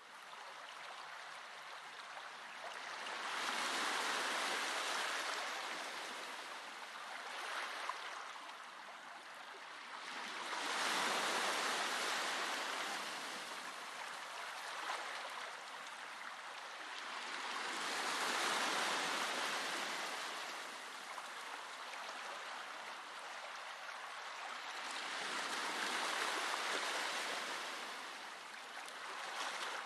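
Slow ocean waves breaking and washing on a shore: four swells of surf, about seven seconds apart, with a softer wash between them.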